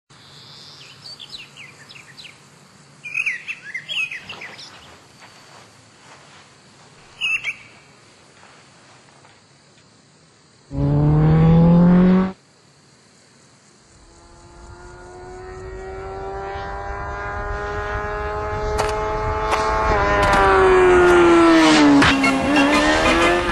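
Birds chirp over quiet open-air ambience. Halfway through, a Kawasaki motorcycle engine at high revs blasts past for under two seconds, rising in pitch and cutting off abruptly. Then a motorcycle is heard at high revs from far off, growing steadily louder until it passes near the end with a sharp drop in pitch.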